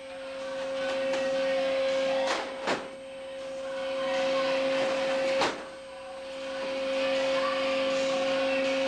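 Steady hum of a fish-processing line's machinery with a constant tone, broken by sharp clanks of metal pans: two close together about two and a half seconds in and one about five and a half seconds in.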